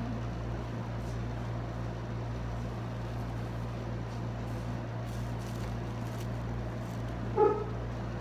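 Steady low hum of a room air conditioner, with one short vocal sound about seven seconds in.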